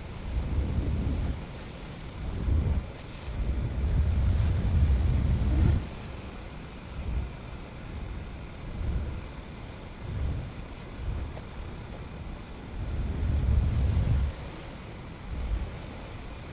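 Gusty wind buffeting the microphone in irregular low rumbles that swell and fade every second or two, over a steady background hiss.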